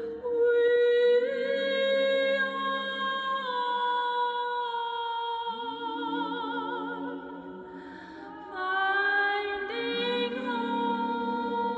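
Layered wordless female soprano voice, looped and harmonised on itself: several long held notes sound at once, with vibrato, and move to new chords a few times.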